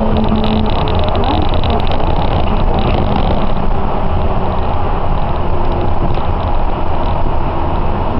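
Port Liner rubber-tyred automated guideway train running at speed between stations, heard from inside the carriage: a steady rumble of tyres on the concrete guideway with the car's running noise.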